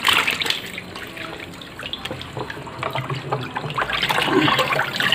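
Water splashing and sloshing in a plastic barrel as a plastic scoop dips in and lifts out live catfish with water. A sharp splash right at the start, getting louder toward the end.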